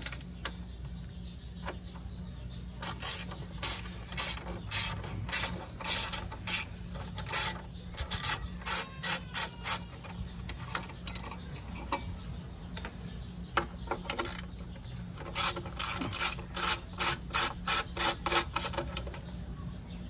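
Hand ratchet wrench clicking as it backs out the bolts holding the chrome front-wheel cover, in several runs of quick clicks, about four a second, with pauses between runs.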